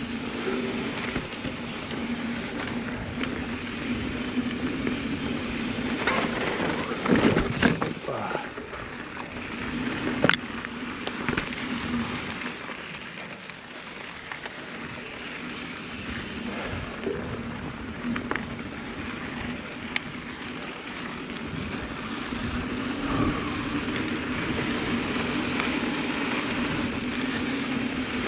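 Mountain bike riding over a dirt trail: a steady rush of tyre and wind noise with scattered knocks and rattles as the bike goes over rough ground, loudest around 7 and 10 seconds in.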